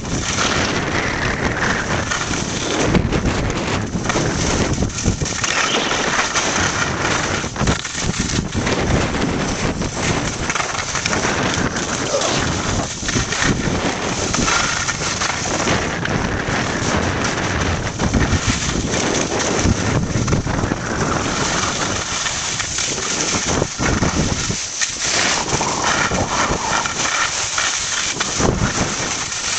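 Skier's wind and snow noise on a fast downhill run: wind rushing over the microphone and skis scraping over snow, a loud, steady rushing that keeps rising and falling.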